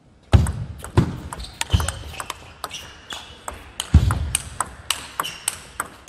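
Table tennis rally: the ball clicks sharply off the bats and the table in quick alternation, with a few heavier low thuds among the clicks, the strongest near the start and about four seconds in.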